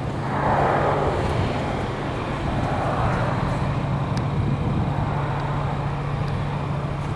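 Air-cooled 3.0-litre flat-six of a 1979 Porsche 911 SC idling with a steady hum, its cooling fan running. A swell of hiss rises about half a second in and again around three seconds.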